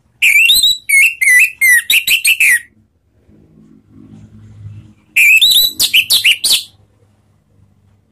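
Orange-headed thrush singing loud 'ngeplong' song: two quick phrases of rapidly changing whistled notes, the first about two and a half seconds long and the second about a second and a half, with a pause of about two and a half seconds between.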